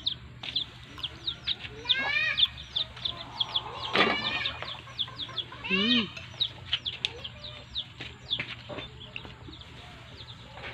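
Chickens clucking, with a few louder drawn-out calls about two, four and six seconds in, over a steady run of short, high chirps.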